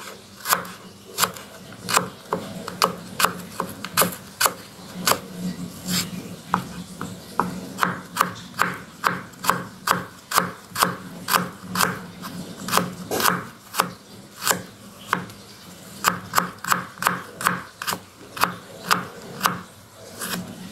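Kitchen knife slicing garlic cloves on a wooden cutting board: a steady run of short, sharp knife strikes on the wood, about two to three a second.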